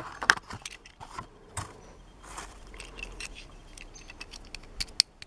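Clear plastic blister packaging of a Hot Wheels car being handled and the toy pulled from it: light crinkling and scattered clicks of stiff plastic, with a sharp click near the end.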